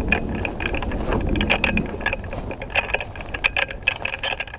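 Dry brush and twigs crackling and snapping in rapid, irregular clicks as someone pushes through undergrowth.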